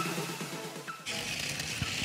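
Electronic background music with a repeating falling chirp, which cuts off suddenly about a second in. It gives way to the steady whir of a battery-powered TOMY Thomas toy engine's motor and gears running on plastic track.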